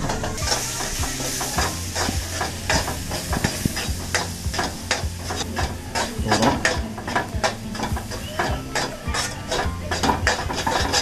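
A metal spoon stirring and scraping fried onions and spice powder around a metal kadai, with many quick clinks against the pan over a steady sizzle: the onion-masala base for a chicken curry frying.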